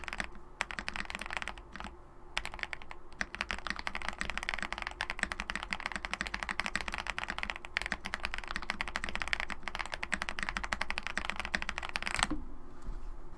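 Fast typing on a KBDfans Tiger Lite TKL mechanical keyboard fitted with lubed Akko POM Brown tactile switches: a dense stream of keystrokes with brief pauses, ending about a second before the end with one louder keystroke.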